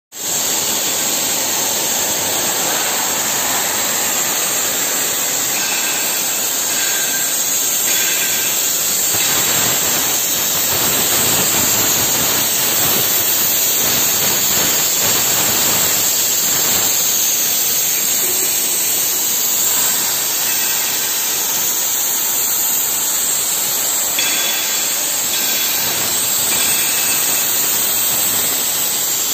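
CNC gantry cutting torch hissing steadily as it cuts through mild steel plate, with faint thin tones coming and going over the hiss.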